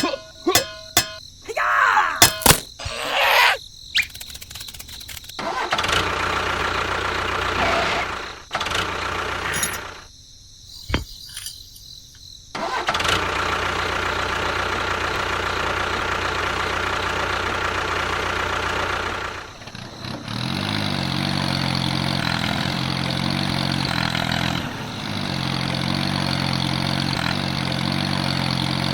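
A small motor running steadily in several stretches that start and stop abruptly, with clicks and clatter in the first few seconds. From about 20 s in, the running takes on an even, pitched hum.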